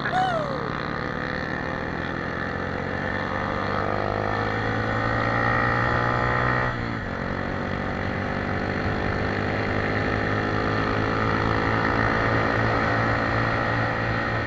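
Motorcycle engine running while riding, its pitch climbing slowly as it gathers speed, dipping sharply about seven seconds in, then climbing again.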